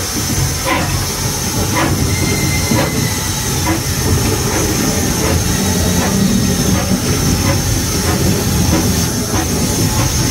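Steam locomotive under way, heard from its footplate: a loud, steady running rumble with a constant steam hiss, and regular sharp knocks about once a second.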